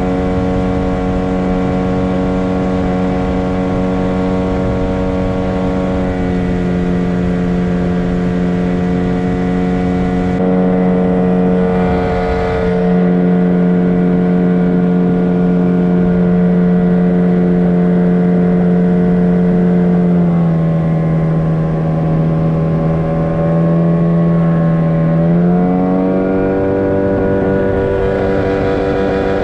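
Mikatsu 9.9 hp outboard motor running steadily while the boat is under way. Its pitch dips about two-thirds of the way through, then rises back a few seconds later as the throttle is eased and opened again.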